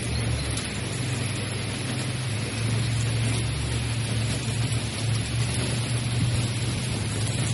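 Steady rain hiss with a constant low rumble underneath.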